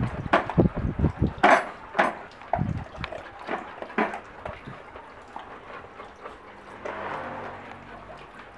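Irregular clicks, scuffs and low bumps from a handheld phone being moved about among dogs close by, busiest and loudest in the first three seconds, then sparser and quieter.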